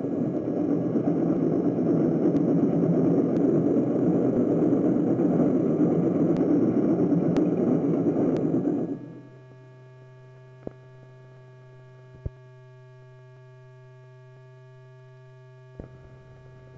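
Steam locomotive running along the track, a loud steady rumbling noise, which cuts off about nine seconds in. What remains is a quiet steady hum with three faint clicks from the film's end leader.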